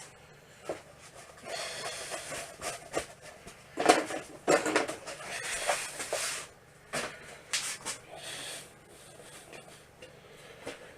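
Hands handling and fitting small plastic and metal parts on a workbench: irregular scraping and rubbing, with a few sharp clicks and knocks.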